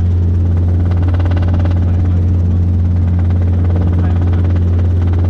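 Robinson R22 helicopter from inside the cockpit in flight: a loud, steady low drone of engine and rotor, with a few constant hum tones above it.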